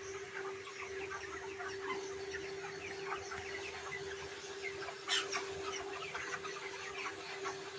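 Flock of chickens calling together: many short overlapping clucks and chirps, with one louder call about five seconds in, over a steady hum.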